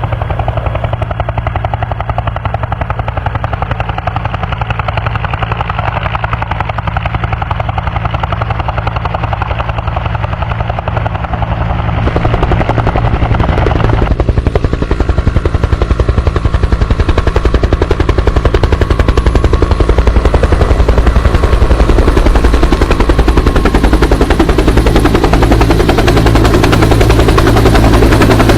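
Bell UH-1H Huey helicopter's turbine and two-blade main rotor, the rapid thudding rotor beat steadily growing louder, with clear steps up about twelve and fourteen seconds in.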